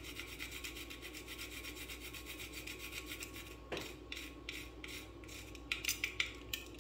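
Whole nutmeg scraped against a small handheld stainless-steel nutmeg grater in quick, repeated rasping strokes, with a small knock partway through.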